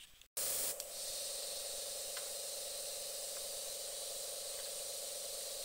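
Airbrush spraying: a steady hiss of air with a steady hum beneath it, starting abruptly about a third of a second in.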